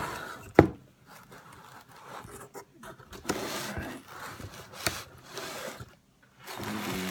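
Cardboard box being handled and opened: a sharp knock about half a second in, then cardboard flaps scraping and rubbing, with a click about five seconds in and paper rustling near the end.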